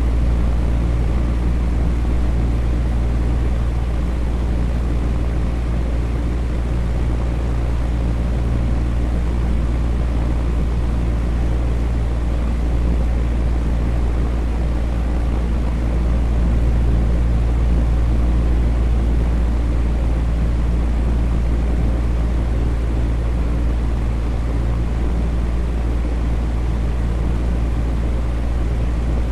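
Electric fan running steadily: a constant low hum with a few steady low tones under an even, soft whooshing noise.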